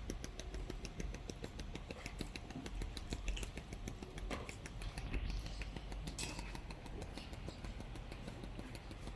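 Creepy crawly suction pool cleaner working in the pool, clicking rapidly and steadily, several clicks a second, over a low hum. It is running freely, no longer stuck in the corner.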